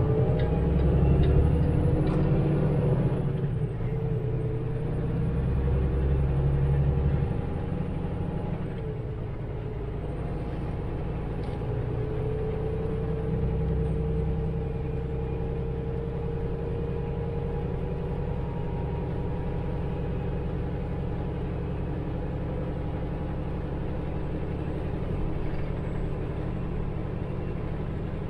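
Semi truck's diesel engine pulling away and accelerating, louder and rising in pitch over the first seven seconds or so, then settling into steady running at speed.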